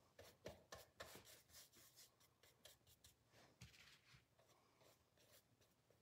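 Faint, scratchy strokes of a paintbrush dragging dark brown paint across a stretched canvas, many short strokes in irregular succession, busiest in the first couple of seconds.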